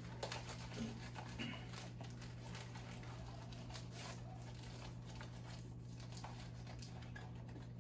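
Crinkling and rustling of plastic packaging being handled and unwrapped by hand, in irregular small crackles, a little louder in the first second or two, over a steady low electrical hum.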